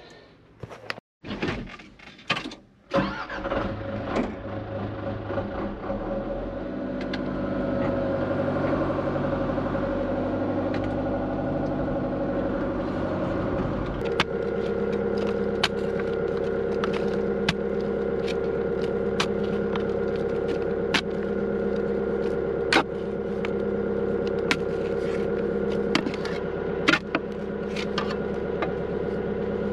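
John Deere 120 excavator's diesel engine running. About halfway through, it takes on load with a pulsing drone as the machine tracks along, and sharp clanks come every second or two from the steel tracks.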